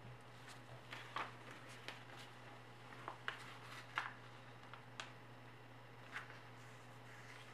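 A sheet of 80 g/m² A4 paper being folded and creased by hand: faint scattered crinkles and rustles, the sharpest about four seconds in, over a steady low hum.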